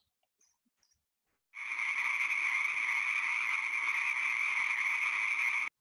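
Recorded frogs calling in a steady, dense chorus, played back by a web page. It starts about a second and a half in and cuts off suddenly near the end.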